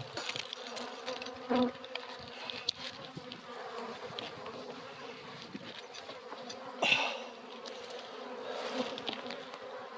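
Honeybees buzzing in the air around an opened hive: a steady, even hum with two brief louder swells, about a second and a half in and again about seven seconds in.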